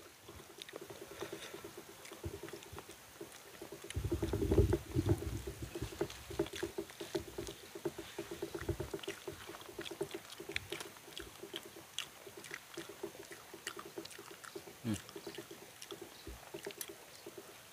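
Eating sounds: people chewing roasted taro and sweet potato and picking off the charred skin, small irregular crackles and clicks throughout, with a low rumble about four seconds in.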